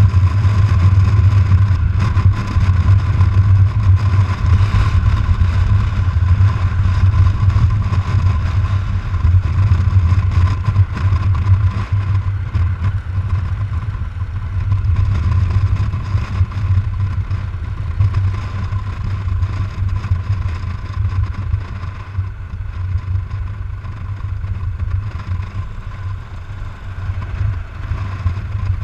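Harley-Davidson FLHT touring motorcycle's V-twin engine running at highway cruising speed, with a steady low rumble mixed with road and wind noise. It gets a little quieter about halfway through.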